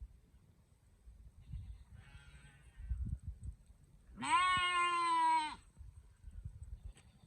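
Sheep bleating: a faint, low baa about two seconds in, then a loud, higher baa lasting over a second that drops in pitch at the end. A few low thumps come before it.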